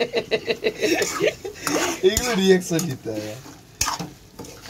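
A steel ladle stirs and scrapes chicken kosha in a steel kadai: quick, regular metal-on-metal scrapes, then two sharp knocks of the ladle on the pan.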